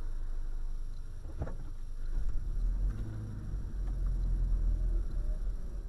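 Low, steady rumble of a car's engine and tyres heard from inside the cabin while driving, with a single short click about a second and a half in.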